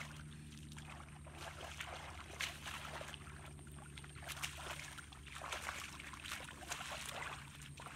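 Hands splashing and squelching through shallow muddy water as someone gropes along the bottom for fish, with irregular small splashes and a few sharper slaps.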